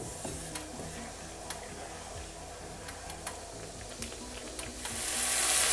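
Faint background music with a few light ticks, then vermicelli in a frying pan begins to sizzle about five seconds in, the sizzling growing louder as the water in the pan cooks off.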